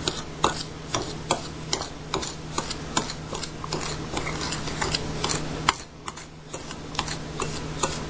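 A spoon stirring a damp powder mix of borax and washing soda in a bowl, clicking and scraping against the bowl about two or three times a second, with a short lull about six seconds in.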